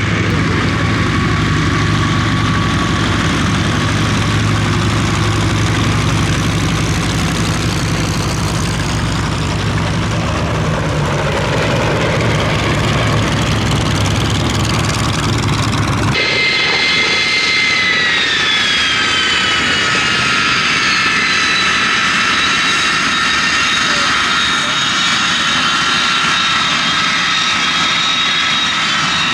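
Propeller aircraft engine running with a steady low drone. About halfway through the sound cuts to a jet engine's high whine, which falls in pitch and then holds steady.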